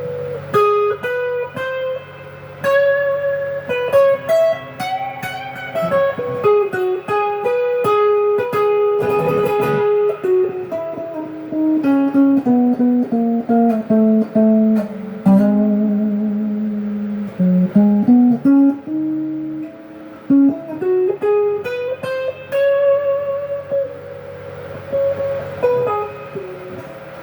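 Overdriven electric guitar playing single-note lead phrases, with sustained notes that are bent and shaken with vibrato. It is a humbucker guitar in its middle position wired out of phase, a tone the player likens to the honk of a goose.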